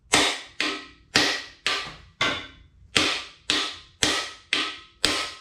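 Hammer striking a bearing driver about twice a second, driving a balance shaft bearing into the bore of a Mitsubishi 4G63 engine block: about ten sharp blows, each ringing briefly, with a short pause a little after two seconds.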